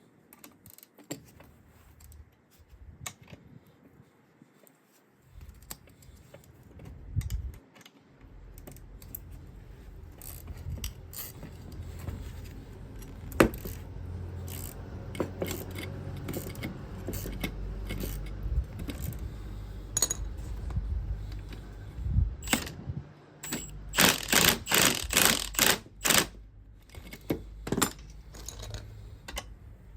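Metal hand tools clinking and scraping on a car's suspension strut and spring compressor as a stuck nut is worked with a spanner. Near the end comes a quick run of sharp metallic clicks.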